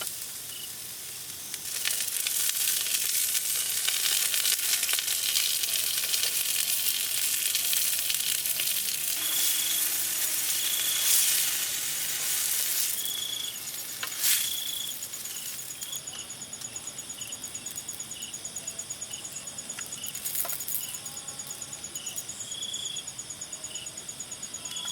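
Food sizzling as it fries in a pan, loud through the first half and dying away a little over halfway through. After that a steady, pulsing high insect trill is left, with short chirps repeating every second or two.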